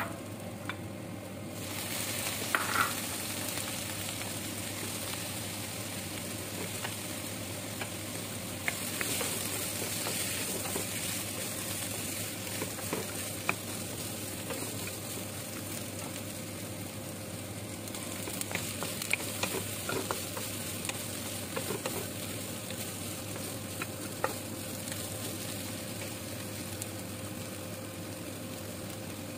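Chopped carrots, potatoes and string beans sizzling in hot oil in a nonstick wok, the sizzle picking up about two seconds in. A wooden spatula stirring them clicks and scrapes against the pan now and then.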